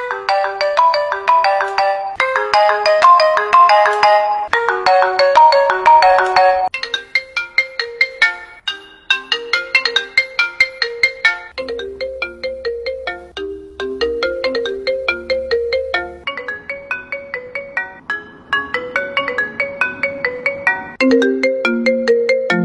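iPhone ringtone playing: a melody of quick, short, bright notes that repeats in phrases, with a lower note pattern and a deep bass coming in about halfway.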